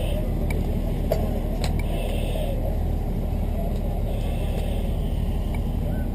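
A steady low rumble like a running engine, with a soft hiss coming and going about every two seconds and a couple of faint clicks.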